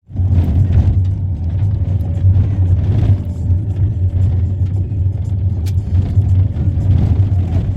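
Car driving: a steady low rumble of engine and road, with many small knocks and rattles scattered through it.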